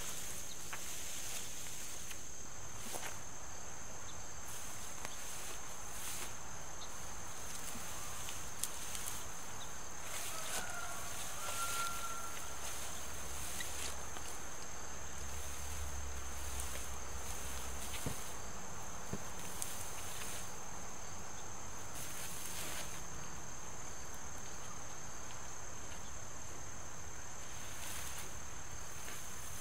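A steady, high-pitched chorus of crickets, with occasional soft rustles and light knocks as plastic fence netting is handled. A low hum comes in for several seconds midway.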